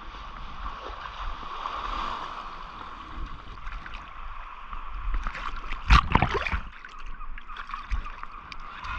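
Sea water sloshing and splashing around a spearfisher as he enters the shallows in fins and swims out at the surface. A louder splash comes about six seconds in.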